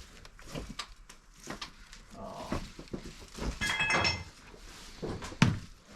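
Scattered thumps and knocks of footsteps over debris going down into a basement, with a brief high ringing squeak or clink near the middle and a sharper knock a little past five seconds in.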